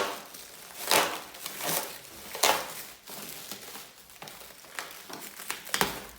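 Packaging being handled and crinkling, in several short rustling bursts.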